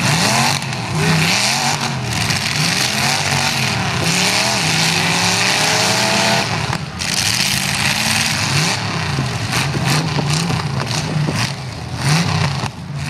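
Several demolition derby cars' engines revving up and down over one another, with a loud, dense noise of exhausts throughout.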